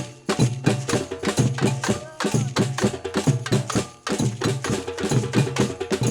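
Brazilian-style batucada percussion group playing a fast rhythm: a repeated low bass drum note under dense, quick, sharp strokes on higher drums and clicking percussion, with a brief break in the beat about every two seconds.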